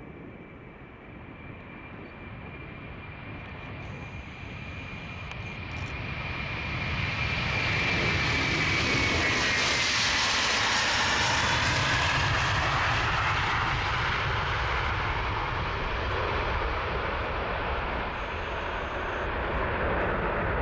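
Airbus A330-300's Rolls-Royce Trent 700 jet engines at take-off thrust during the take-off roll and lift-off. The engine noise grows much louder as the aircraft passes, and a high whine drops in pitch as it goes by. The noise stays loud as the jet climbs away.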